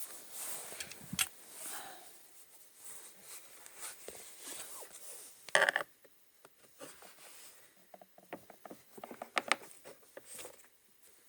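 Irregular creaking and squeaking from a Skoda Octavia Tour: scattered short creaks and clicks, one louder squeak about five and a half seconds in, and a run of quick creaks near the end.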